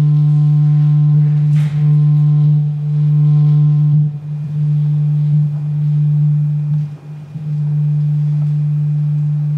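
Synthesizer drone: a loud, steady low electronic tone with faint overtones. It breaks off briefly about seven seconds in, and a short hiss sounds about a second and a half in.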